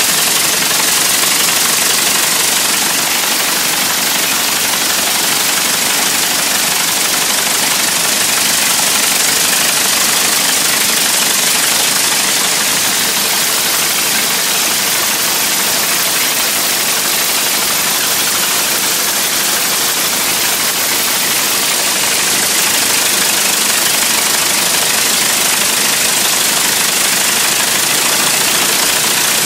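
Wright Brothers No. 20 four-cylinder aero engine, built in 1910, running loud and steady.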